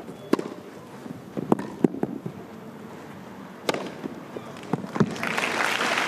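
Tennis rally on a grass court: sharp racket strikes on the ball, with the ball's bounces, about a second apart. Near the end the crowd breaks into applause as the point is won.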